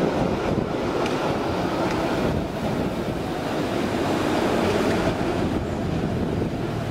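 Steady rattling noise of a San Francisco cable car line: the cable running in its slot under the street and cable cars on the hill, with cars driving up the street.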